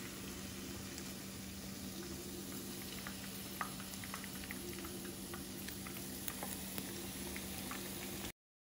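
Chicken thigh pieces frying in hot oil: a steady sizzle with scattered small crackles and pops over a steady low hum. It cuts off suddenly near the end.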